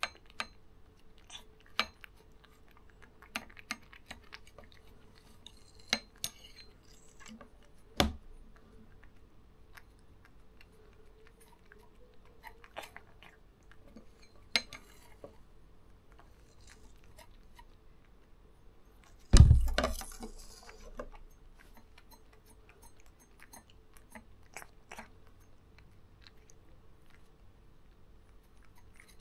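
A cat licking a liquid treat from a shallow metal tin lid on a hard tabletop: a run of small wet clicks and taps as the tongue and the lid touch, with the lid clinking now and then. About nineteen seconds in comes one much louder knock.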